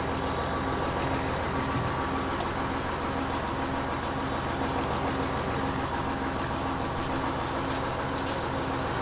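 Large vehicle's engine running steadily, with an even rumble that does not rise or fall.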